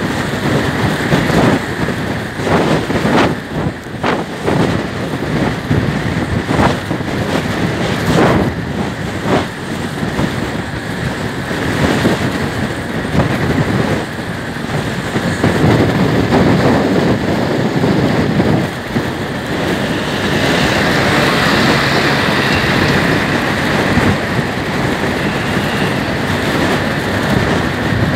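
Wind rushing and buffeting over the microphone of a moving Suzuki scooter, with the scooter's engine and tyre noise underneath. The gusts are heavy and irregular in the first half and settle into a steadier rush after about twenty seconds.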